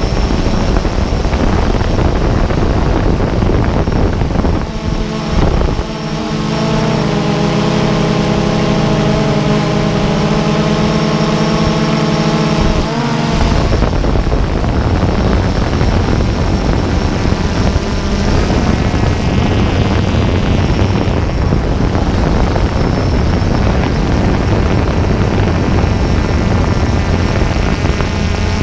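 A drone's propellers and motors whining steadily in flight, mixed with a rushing noise; from about five to thirteen seconds in, a clear set of steady motor tones stands out above the rush.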